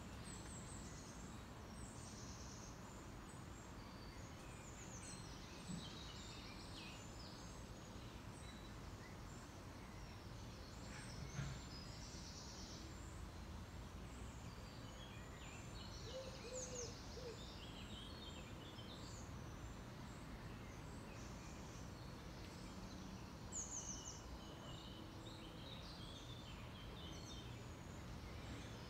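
Faint, steady outdoor background noise with small birds chirping and singing at intervals. A few short low notes come about halfway through.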